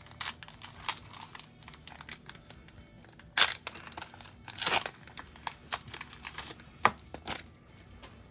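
A foil Pokémon 151 booster pack wrapper being crinkled and torn open, a run of irregular crackles with the sharpest ones about three and a half, four and a half and seven seconds in.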